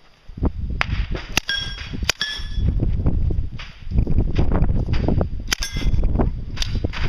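Sharp shots from a full-size 9mm Uzi submachine gun, with steel targets ringing as they are hit, about a second and a half in, at two seconds, and again past the middle.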